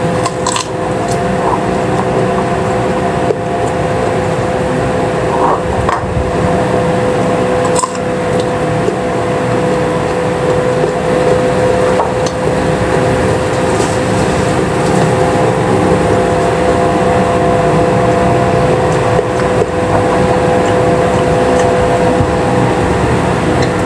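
Chewing a bite of raw green papaya, skin on, with occasional sharp crunches, over a steady droning hum.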